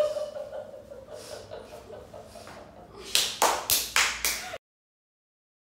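Hands clapping: about five quick claps starting about three seconds in, then the sound cuts off suddenly.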